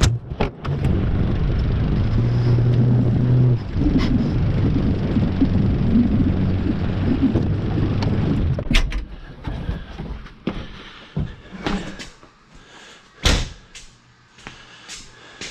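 Small tractor's engine running as the tractor is moved, its pitch shifting a few times, then shutting off about nine seconds in. A few knocks and clunks follow.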